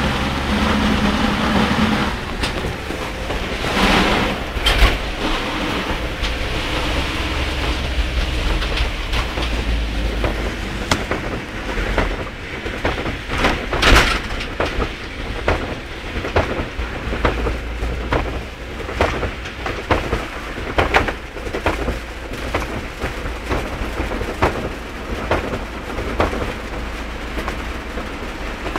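Heavy rain on a moving vehicle over a steady low road and engine rumble, with short sharp splashes and knocks scattered through, the loudest about fourteen seconds in.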